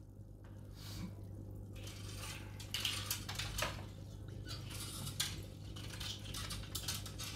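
Fishing rods and tackle being handled and rummaged through: a string of irregular light knocks and clinks.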